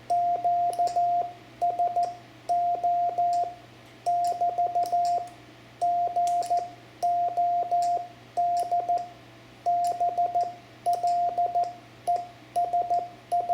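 Morse code (CW) keyed by hand on a single steady tone, the transceiver's sidetone, sent as short and long beeps in character groups with short pauses between them. The code spells out 'FER GOD BLESS' as part of the sign-off of a ham radio contact. A faint low hum lies underneath.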